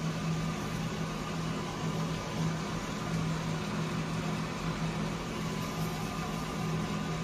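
Wake Up electric coffee roaster running mid-roast, a steady low mechanical hum with a thin higher tone over it, while the beans are in the drying stage turning yellow-green.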